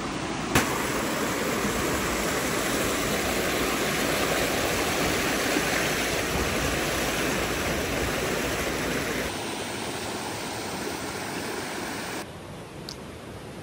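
Creek water rushing steadily, with a click about half a second in. The sound changes abruptly about nine seconds and again about twelve seconds in, getting quieter each time.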